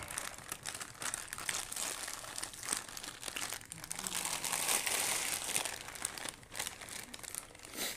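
Foil snack packets crinkling as they are handled and eaten from, a rapid run of small crackles that is densest about four to five seconds in.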